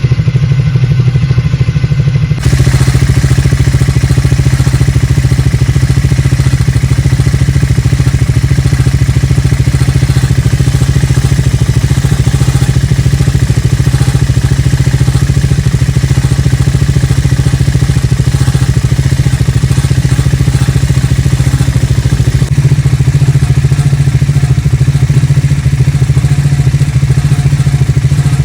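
Triumph Speed 400's single-cylinder engine running steadily, carrying the silencer noise that the owner identifies as a faulty silencer, replaceable under warranty. The sound changes abruptly about two seconds in and again near the end, as one recording gives way to another.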